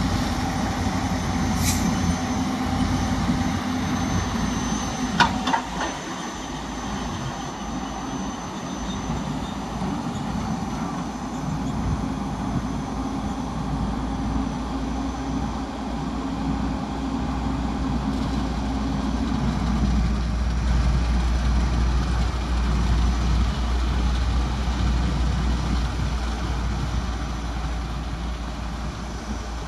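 Heavy diesel construction machinery running steadily, with a couple of sharp clicks in the first few seconds and a deeper, louder low rumble from about twenty seconds in.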